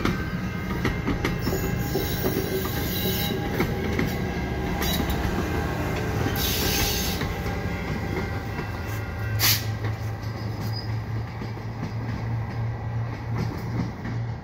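Bombardier multilevel commuter coaches rolling past, with steel wheels clicking and giving a thin squeal on the rails. From about nine seconds in, the ALP45DP diesel-electric locomotive pushing at the rear goes by with a steady low engine drone.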